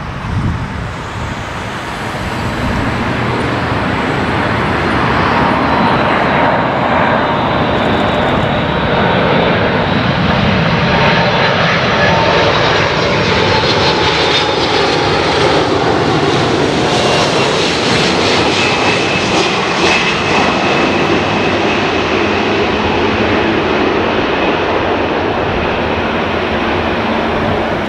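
Four Pratt & Whitney PW4056 turbofans of a Boeing 747-400 on final approach to landing: a loud, steady jet roar that builds over the first few seconds, with a high whine that slowly falls in pitch as the airliner passes and descends toward the runway.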